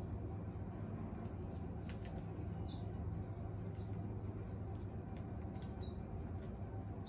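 Amazon parrot eating dried fruit: scattered small beak clicks and crunches, with a few short high chirps, over a steady low hum.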